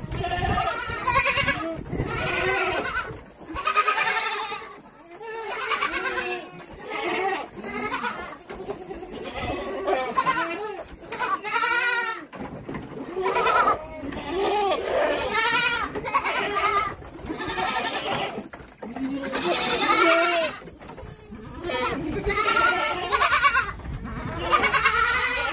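Goats bleating over and over, one call after another with some overlapping, each call wavering in pitch.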